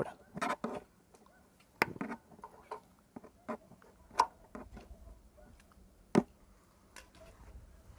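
Flat-blade screwdriver pressing and prying at the clip of a plastic cover cap: scattered, irregular clicks, taps and light scrapes of tool on plastic.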